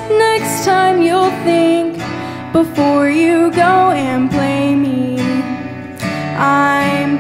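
A woman singing long, drawn-out notes that slide in pitch, over a strummed acoustic guitar, in a live solo singer-songwriter performance.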